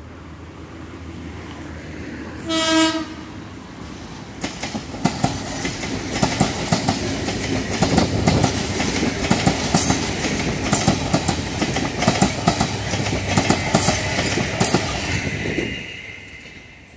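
Toshiba electric multiple unit sounds one short horn blast a couple of seconds in. It then runs past close by, its wheels clattering over the rail joints, and the noise fades away shortly before the end.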